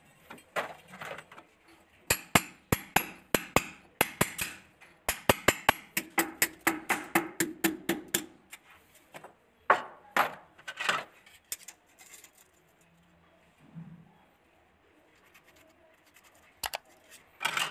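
A quick run of sharp clicks and clinks of small hard objects, about three to four a second, then a few scattered knocks and a couple more clicks near the end.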